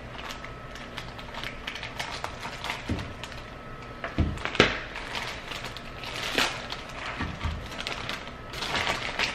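Scissors snipping through a small packaging bag, with the bag crinkling and rustling as it is handled and pulled open. A couple of sharper clacks come in the middle.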